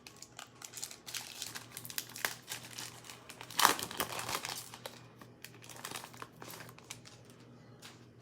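Foil trading-card pack wrapper crinkling and tearing as the pack is opened by hand. The crinkling is loudest a little past the middle, then dies to a faint crackle.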